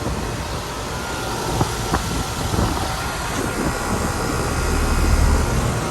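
Carrier Comfort Series heat pump outdoor units running, a steady fan whoosh with compressor hum. There are two faint clicks about a second and a half in, and a low rumble swells near the end.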